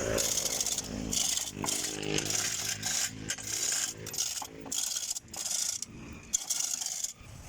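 About ten short rasping, scraping strokes, unevenly spaced, from hand work on a vehicle engine during its removal.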